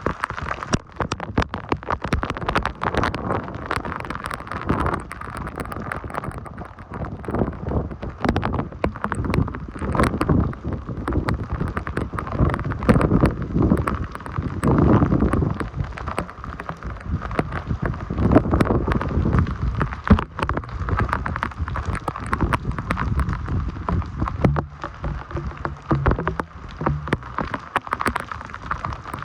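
Typhoon rain pouring hard, a dense patter of drops hitting close by. Wind buffets the microphone in gusts. A brief low hum sounds near the end.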